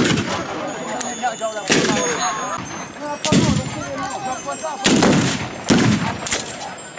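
Celebratory gunfire from long guns: about five loud shots, a second or two apart, two of them close together near the end, with voices calling out between the shots.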